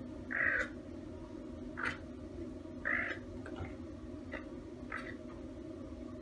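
Caracal giving short, high calls: two louder ones, about half a second in and around three seconds in, with fainter, briefer ones between and after.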